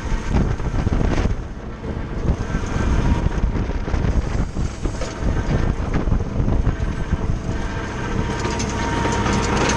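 Valtra A93 tractor's four-cylinder diesel running under load while an Agrimaster KP 2600 flail mower spins and cuts verge grass, a steady mechanical drone with an uneven low rumble. Wind buffets the microphone.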